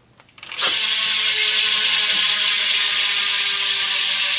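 BMX rear hub, a Premium Stinger, freewheeling as the wheel spins: its pawls click so fast they blend into a steady, loud buzz that starts abruptly about half a second in.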